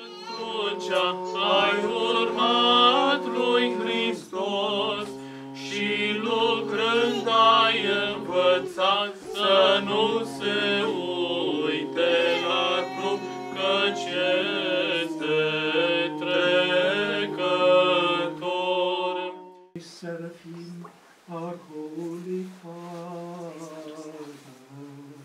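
Orthodox Byzantine-style chant: a sung melody moving over a steadily held drone note. About twenty seconds in the singing breaks off, and softer voices follow.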